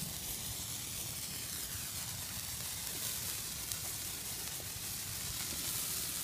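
Hand-held coloured sparklers burning with a steady fizzing hiss and a few faint crackles.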